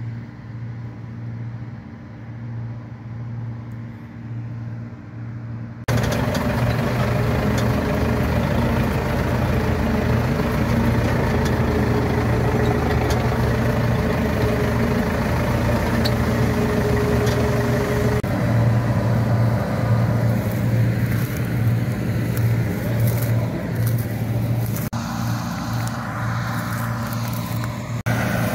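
Zetor 7211 tractor's four-cylinder diesel engine running steadily with a low, even drone, heard from inside the cab. For the first six seconds it is quieter and duller, then suddenly much louder and fuller.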